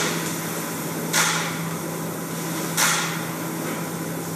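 Sharp hissing swishes, three of them about a second and a half apart, each fading quickly, over a steady low hum.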